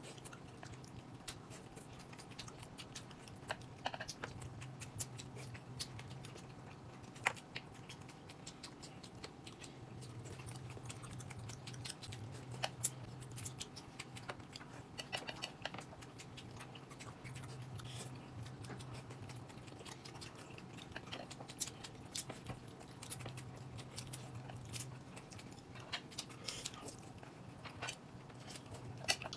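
Faint eating sounds: chewing, with many scattered small clicks and a low hum that comes and goes.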